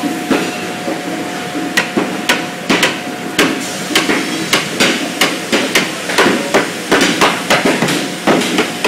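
Hammer blows on a barrel under assembly, weaker at first and then a quick regular run of about three strikes a second from about two seconds in, over a steady machine hum.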